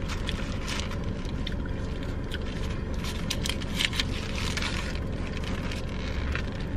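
Close-up eating sounds: chewing fries and a burger, with crackles from its paper wrapper, over a steady low hum inside the car.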